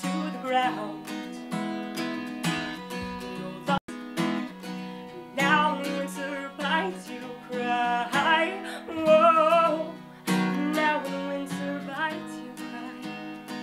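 Steel-string acoustic guitar strummed in a steady rhythm while a woman sings over it, her held notes wavering with vibrato. The sound cuts out for an instant about four seconds in.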